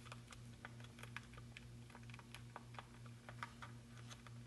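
Faint, irregular tapping of calculator keys, about three or four presses a second, as a division is keyed in, over a steady low hum.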